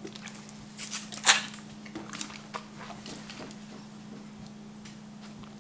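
A person drinking from a plastic water bottle, with a few short, sharp sips and crackles about a second in, then small scattered clicks from the mouth and bottle, over a steady low hum.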